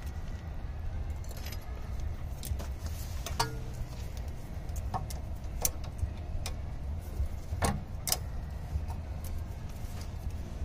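Scattered metallic clinks and clicks of hand tools against a rear stabilizer bar link as locking pliers are fitted to hold the link's stud, over a steady low rumble. The sharpest clinks come about three and a half seconds in and again near eight seconds.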